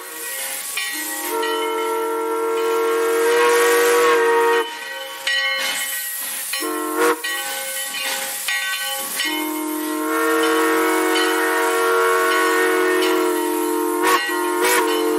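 Steam locomotive whistle blowing a chord of several notes at once: a long blast, a short toot near the middle, then another long blast, over the hiss of escaping steam.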